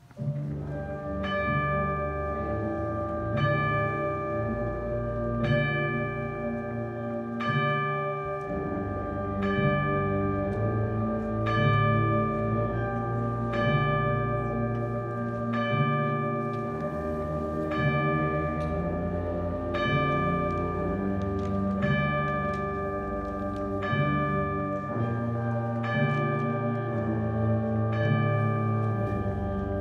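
High school concert band playing a slow passage: sustained low wind chords under a bell-like struck note that rings about once a second.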